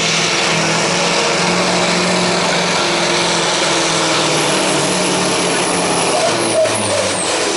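Scania T-series truck's diesel engine running hard under full load as it drags a weight-transfer pulling sled, a loud steady drone. About six seconds in, the engine note drops lower.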